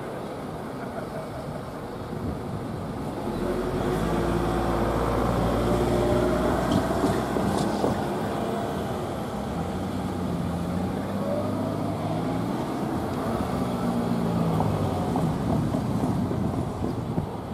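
Kintetsu electric train pulling out of the station: its traction motor drive whines in steady tones that then rise in pitch in steps as it accelerates, over the rumble of the wheels on the rails.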